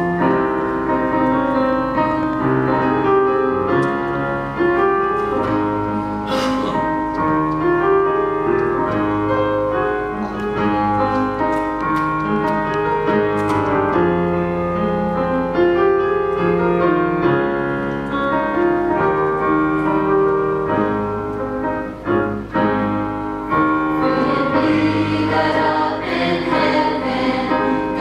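Church choir singing with piano accompaniment. The voices grow fuller from a few seconds before the end.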